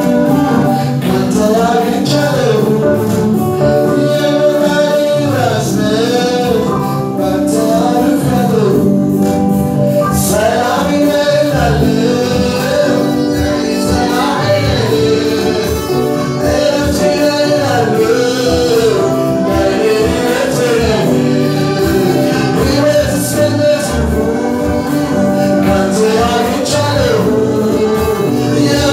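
Amharic gospel worship song: a male lead vocalist singing into a microphone with a choir and instrumental accompaniment, a steady, continuous performance.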